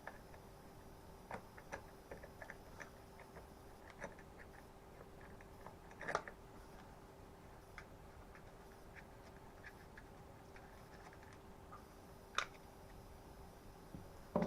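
Small plastic parts of a Stihl FS36 string trimmer being handled and unclipped during disassembly: scattered light clicks and taps, with sharper knocks about 6 and 12 seconds in, over a faint steady hum.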